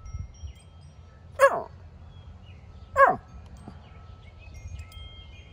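Long-haired dachshund barking twice, two short downward-sliding barks about a second and a half apart.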